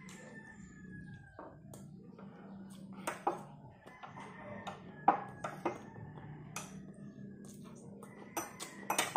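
Metal spoon and fork clinking and scraping against a plate in a few sharp clicks, the loudest about five seconds in, with a mouthful of rice being chewed.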